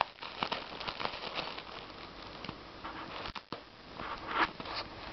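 Plastic packaging crinkling and crackling as a Bichon Frise noses and paws at a plastic-wrapped Snuggie. The crackles come irregularly, loudest about four seconds in.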